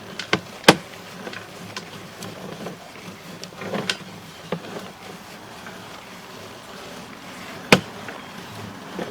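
Sewer inspection camera rig being worked: scattered sharp clicks and knocks from the push cable and reel over a faint steady hum.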